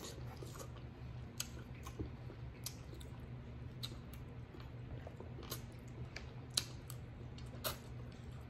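Close-miked chewing of king crab meat, with irregular small clicks and crackles from picking at the crab shell, over a faint steady low hum.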